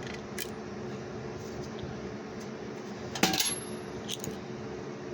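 Pocketknives and small metal items clinking and clattering as they are taken out of a small container, with a louder clatter about three seconds in and another a second later.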